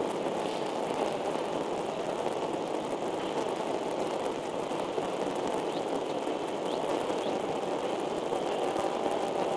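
Steady rushing noise picked up by the nest camera's microphone, with a few faint, short, high chirps about half a second in and again around six seconds in.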